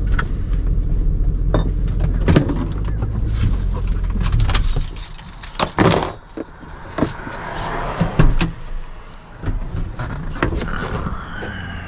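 A vehicle engine running with a steady low rumble that cuts off about five seconds in, followed by scattered clicks and knocks.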